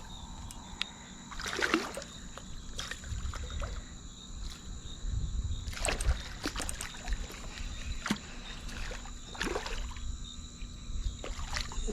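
Wind rumbling on the microphone over water, with a few brief sharp sounds about two, six and nine seconds in.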